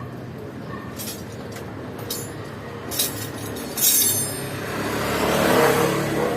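Hand tools clinking against metal parts a few times, the loudest clink ringing about four seconds in, then a rush of noise that swells and fades near the end.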